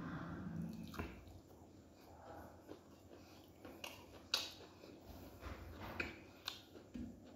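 Close-up eating sounds as rice is mixed by hand on a metal plate and chewed: quiet wet mouth smacks and a scatter of sharp clicks, the loudest about four seconds in.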